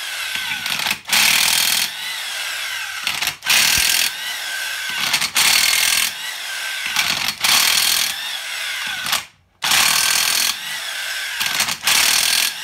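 Power wrench working the connecting-rod cap fasteners off a 7.3 IDI diesel's crankshaft, in about six loud bursts of roughly a second each. Between bursts the motor trails off with a falling whine.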